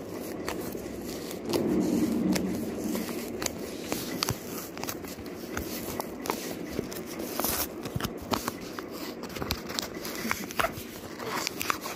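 Debit card packaging being handled and worked open by hand: irregular clicks, scrapes and rustles of card and plastic, with a louder rubbing stretch about two seconds in.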